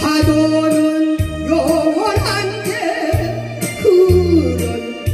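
Trot song accompaniment: a keyboard backing track with a steady bass beat about twice a second under a gliding, bending melody line.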